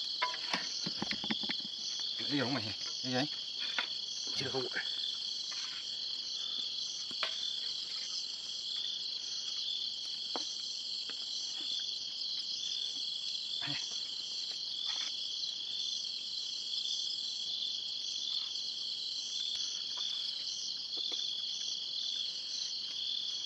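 A steady, pulsing high-pitched chorus of night insects, crickets among them. In the first few seconds there are scattered clinks and scrapes of a spoon in metal pots, and a few more later.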